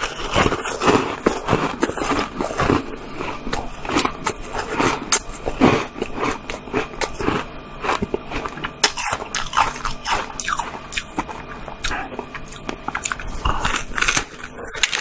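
Close-up biting and crunching of a frozen ice block with strawberry slices set in it: many sharp cracks of ice breaking between the teeth, repeated throughout.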